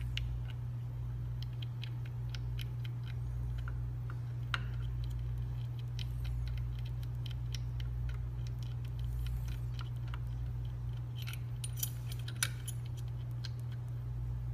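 Small metallic clicks and clinks from the measuring arms and fixture of a universal length measuring instrument being handled and set, over a steady low hum. There is a sharper click about four seconds in and a few more near the end.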